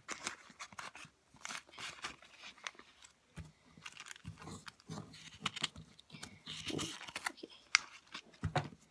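Plastic bag crinkling and rustling as stickers and small fingerboard parts are handled, with irregular sharp clicks of small items.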